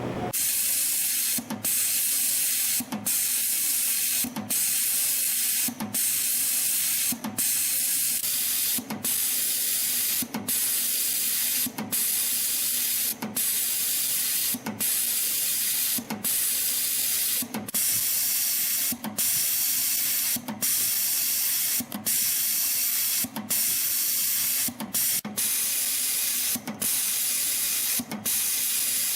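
CNC spring coiling machine, a YHM CF-310, feeding and coiling 0.8 mm wire into multi-diameter compression springs: a steady high hiss that dips briefly about every second and a half, once per spring, at about 40 springs a minute.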